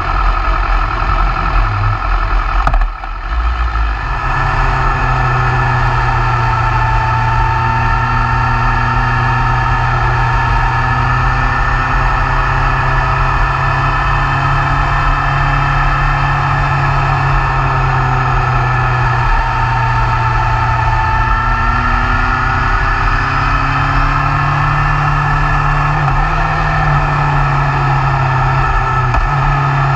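2016 BMW S1000R's inline-four engine running at a steady road speed, heard from a camera mounted on the bike, with the engine note rising and falling gently and a brief drop about three seconds in. Wind rushing over the bike runs underneath.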